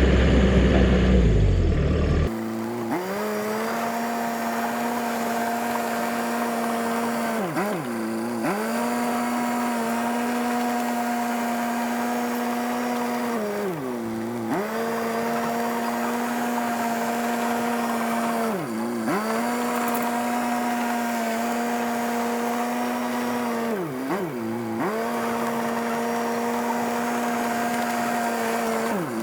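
Dresser bulldozer running under load: a low engine rumble that cuts off about two seconds in, then a steady mechanical whine whose pitch sags and recovers about every five seconds as the machine takes load while pushing and levelling dirt.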